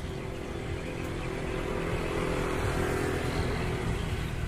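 Nissan UD 7000 cc diesel truck engine running steadily, with a steady low, even hum that grows a little louder around the middle.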